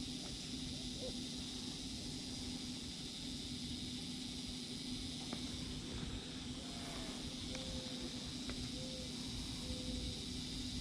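Steady outdoor background hum and hiss, with four faint, short whistled notes in the second half.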